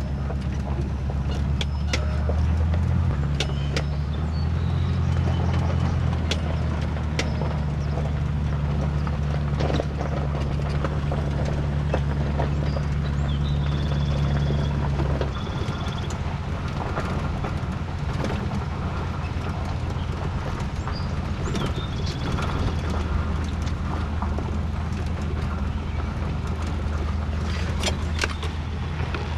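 Pickup truck engine and road noise heard from the boat it is towing on a trailer: a steady low drone that changes pitch about three seconds in and again about halfway, with frequent rattles and knocks from the trailer and boat bouncing.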